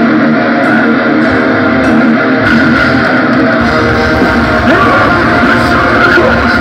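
Live rock band playing loudly, with electric guitar to the fore and bass and drums below; the low end fills in about halfway through.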